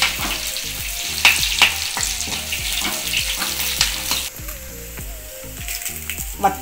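Small onions sizzling in hot sesame oil in a kadai as they sauté toward golden, stirred and scraped by a slotted steel spatula, with sharp clicks of metal on the pan. The sizzle grows quieter about two-thirds of the way through.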